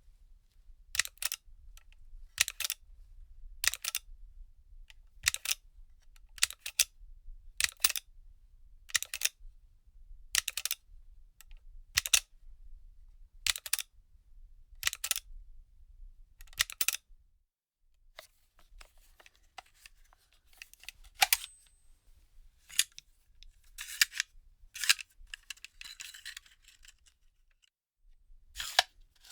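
A firearm magazine being handled: a series of sharp metallic clicks and clacks, about one every second and a half for the first half. Then looser rattling and clattering, and one more click near the end.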